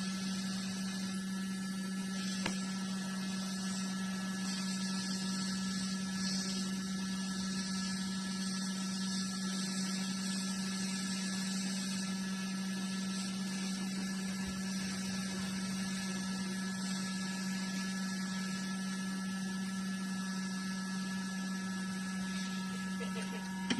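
Hot air rework station blowing steadily on a phone circuit board to desolder the memory card connector: a constant low hum with an even airy hiss.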